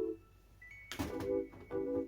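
Background music of light keyboard chords. It breaks off briefly and starts again about a second in.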